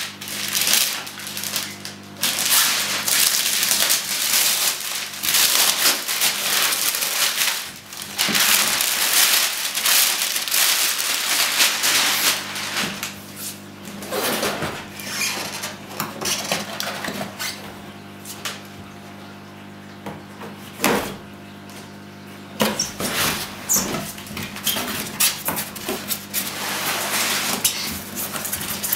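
Plastic shrink-wrap being crinkled and pulled off a large cardboard box, in long, loud crackling stretches. Then quieter rustling and scraping as the box is opened and its white foam insert is slid out near the end.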